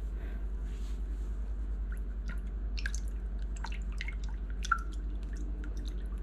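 A plastic spatula stirring a thin mixture of milk and pickled jalapeño brine in a glass bowl: scattered wet squishes and light clicks against the glass, starting about two seconds in, over a steady low hum.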